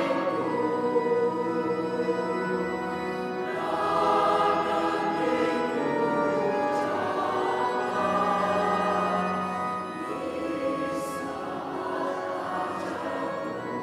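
Mixed church choir of men and women singing a hymn in two parts, in long held notes that swell and ease.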